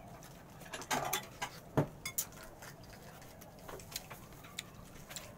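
A spoon clinking and scraping against a ceramic bowl as slices of green mango are dipped into it: scattered light clicks, the sharpest a little under two seconds in.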